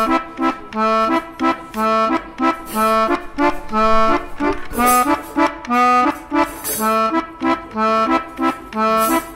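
Background music: an accordion waltz, a low bass note followed by chords in a steady oom-pah-pah rhythm.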